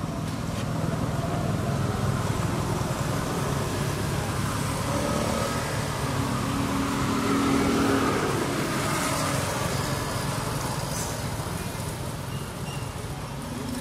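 Road traffic: a motor vehicle passing, growing to its loudest about eight seconds in and then fading over a steady traffic rumble.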